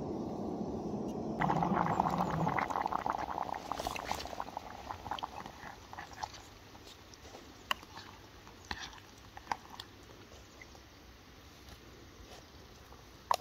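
Dry food poured into hot water in a lightweight camping pot: a sudden dense patter about a second and a half in that fades over a few seconds, followed by a plastic spoon stirring and clicking against the pot's metal wall.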